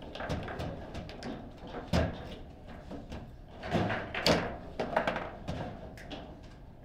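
Foosball table in play: the ball struck by the plastic figures and knocking against the table, with the rods clacking as they are slid and spun. The knocks come irregularly, the hardest about two seconds in and again just after four seconds.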